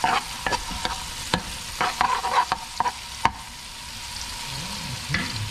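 Chopped garlic sizzling in melted margarine in a frying pan, with a utensil clicking and scraping against the pan as it is stirred during the first three seconds. After that there is only steady sizzling as the garlic browns.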